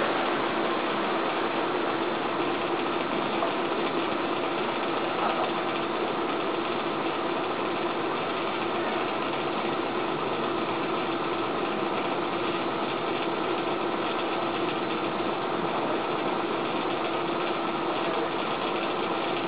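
A steady machine hum over an even rushing noise, unchanging throughout.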